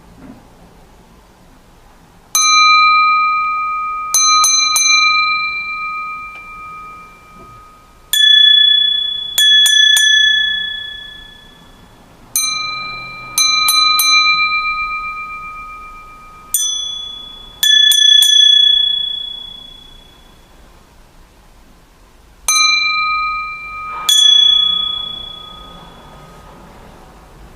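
Bohemian crystal glasses tapped one after another, each ringing with a clear, bell-like tone that dies away slowly over several seconds. About a dozen strikes, often in quick pairs, with two glasses of different pitch taking turns.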